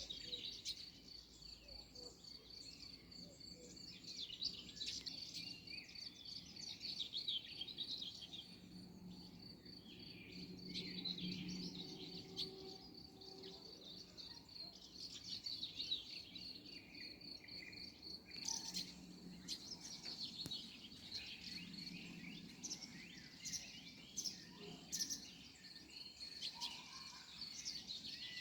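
Several wild birds singing and calling over a continuous high, pulsing insect-like trill. A low droning sound swells twice, in the middle and again near the end.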